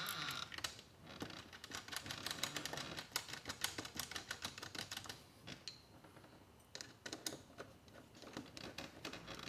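Phillips screwdriver hand-tightening the lockset's machine screws: faint runs of small, quick clicks that thin out to a few scattered ones after about five seconds.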